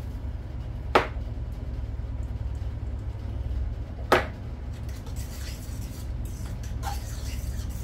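Salt and pepper shakers in use over a pot of mashed potatoes: two sharp knocks about three seconds apart and a faint rattle of shaking, over a steady low hum.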